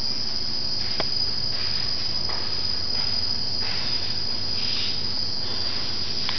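Insects trilling in one steady, high-pitched drone, with a single sharp click about a second in.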